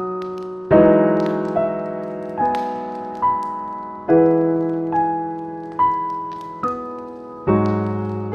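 Slow, calm solo piano music: single notes and soft chords struck about once a second, each left to ring and fade. Faint crackling from a fireplace sits underneath.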